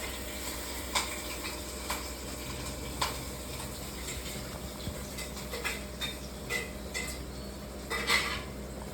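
Pet parrots bathing: a steady hiss of water with irregular sharp clicks and knocks, the loudest cluster about eight seconds in.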